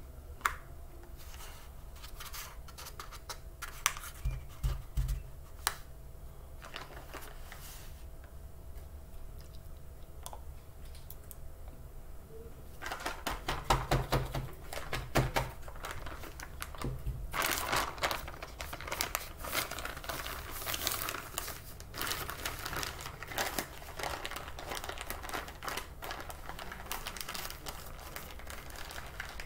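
Paper and plastic bags crinkling, with scraping clicks of a spoon scooping and packing tapioca starch. The rustling comes in short, irregular bursts and grows much busier about halfway through.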